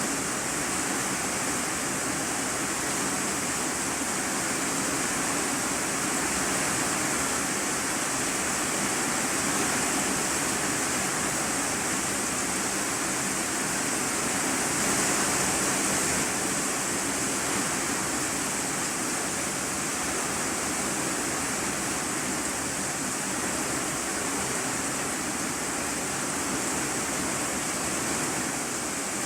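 Steady heavy rain drumming on a corrugated iron-sheet roof, heard from the room beneath as an even hiss.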